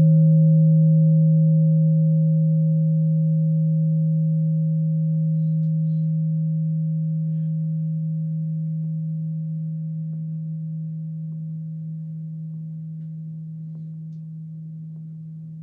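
Singing bowl ringing out in one long deep tone with a fainter higher overtone, slowly fading away.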